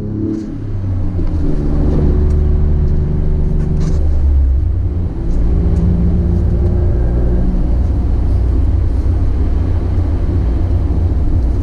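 Toyota GR Corolla's turbocharged 1.6-litre three-cylinder engine and aftermarket FI exhaust running steadily while the car drives, a loud low drone with a brief dip in level about five seconds in.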